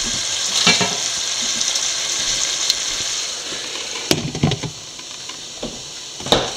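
Chicken and breadfruit curry in coconut milk sizzling in a pan, a steady high hiss. Knocks about a second in, then a cluster from about four seconds in, the loudest near the end, as a glass lid is set on the pan; the sizzle is quieter once the lid is on.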